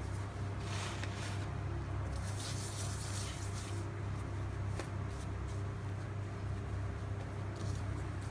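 Hands rubbing across a floured worktop and pressing pizza dough flat, heard as soft brushing and rubbing patches, over a steady low hum.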